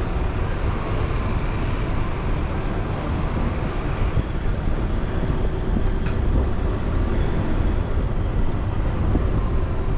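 A car being driven: a steady low rumble of engine and tyres on the road.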